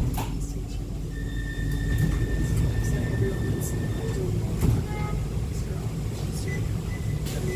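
Inside an E2-class tram drawing to a halt: a steady low rumble of the tram and street traffic. A thin, high electronic tone is held for about three seconds, and a few short beeps come about five seconds in.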